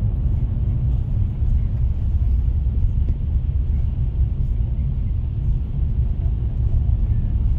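Steady low rumble of a car heard from inside the cabin while driving: engine and road noise with no sudden events.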